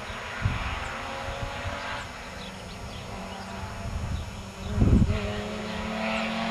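Distant rally car engine running hard along the stage, its note rising in pitch as it accelerates. Heavy low thumps hit the microphone about half a second in and, loudest, about five seconds in.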